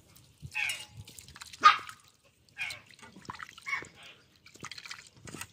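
A hand squelching and swishing a mass of shelled clam meat in a pot of water: a run of short wet squishes and splashes, the loudest about a second and a half in.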